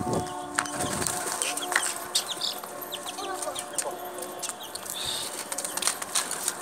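Domestic pigeons flapping their wings as they take off and move about, with many short sharp clicks and a few brief chirps.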